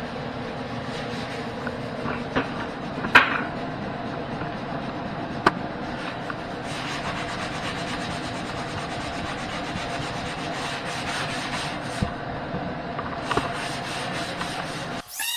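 Hand tool scraping and rubbing over a filled wall patch, a steady scratchy sound broken by a few sharp knocks. A cut to a held musical tone comes right at the end.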